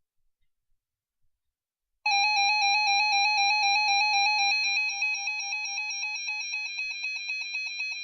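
Electronic tone melody rapidly trilling between two notes, starting suddenly about two seconds in after silence. It becomes quieter and pulsing after about five seconds.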